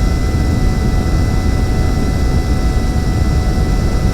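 Steady rush of air from a dryer vent, a loud low rumble with a faint steady whine over it, taken as the initial airflow reading before the vent is cleaned.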